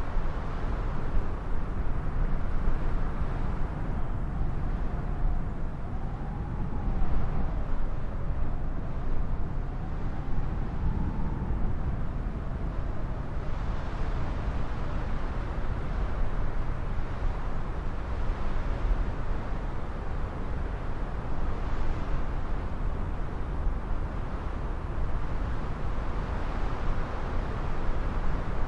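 Storm wind rumbling steadily on the microphone, with a faint wavering whine from a distant jet aircraft's engines partway through.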